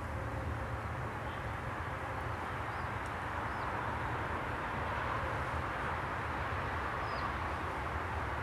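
Steady background rumble and hiss of distant road traffic, with a few faint, short high chirps from small birds.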